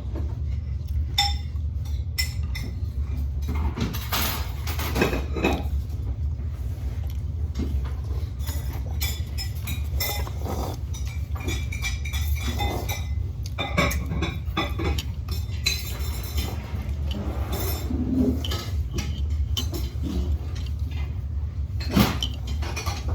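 Eating at the table: utensils clinking and knocking against dishes in irregular short taps while noodles are eaten, over a steady low hum.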